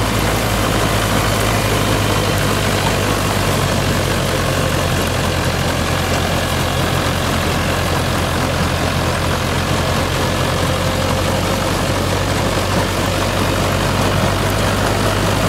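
Mahindra Arjun Novo 605 50 hp tractor's diesel engine running steadily under load in second low gear while pulling a straw reaper.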